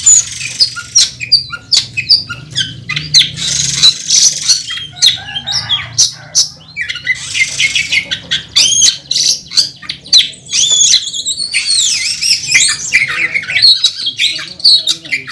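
Oriental magpie-robin (kacer) in loud, combative song: rapid harsh rattles and sharp clicks mixed with whistled, gliding phrases, including phrases mimicked from other birds.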